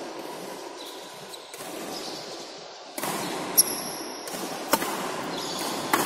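Badminton rally: three sharp racket hits on the shuttlecock about a second apart, beginning about halfway through, the first the loudest with a brief high ring of the strings.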